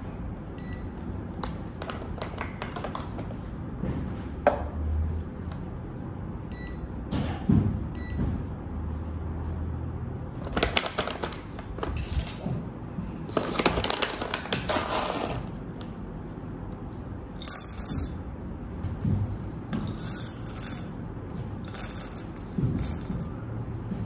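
Scattered clinks and knocks of espresso tools and a stainless-steel dosing cup being handled on a rubber bar mat and scale, then repeated crinkling of a foil-lined coffee bean bag and short rattles of beans scooped toward the metal cup.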